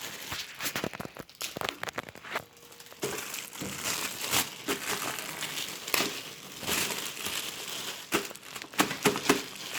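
Packaging being handled during unboxing: steady irregular crinkling and rustling, with some tearing, quieter for a moment about two seconds in.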